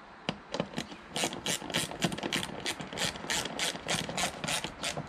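Hand ratchet clicking rapidly and evenly, about four clicks a second, as a bolt on the pollen filter housing is run in, after a few scattered clicks at the start.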